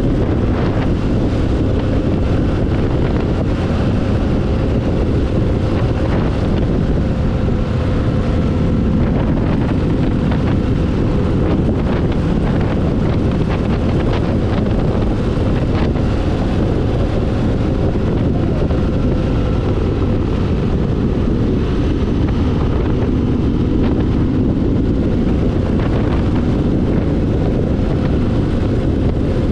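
Motorcycle engine running steadily at cruising speed, mixed with heavy wind rush on the microphone.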